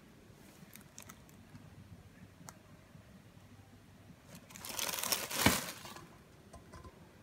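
Plastic carrier bag crinkling for about a second as a frying pan is handled and turned over on it, with a sharp knock at the loudest moment; otherwise a few faint handling clicks.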